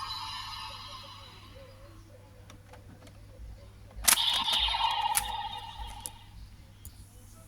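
Plastic clicks from a Kamen Rider Gotchard transformation belt toy being handled, then a sharp click about four seconds in that sets off a short electronic tone, which fades over about two seconds.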